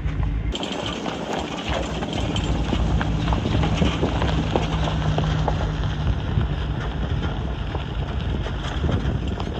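Vehicle driving slowly along a rough dirt and gravel road: tyres crunching over stones with many small, irregular clicks and rattles over a steady low engine hum.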